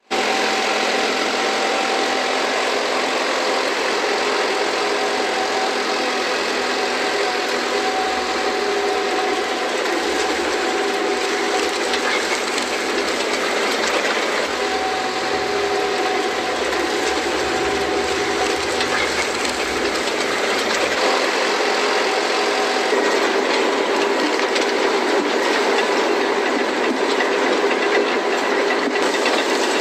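Harvesting machinery running steadily: a continuous engine drone with mechanical rattling and a couple of held tones that fade in and out.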